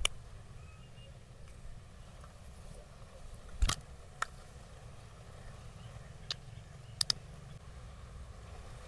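Sharp cracks and clicks during a stick-and-hand head, neck and back massage: six short, separate ones. The loudest, with a dull thump, comes about three and a half seconds in, and a quick pair comes near seven seconds, over a low steady rumble.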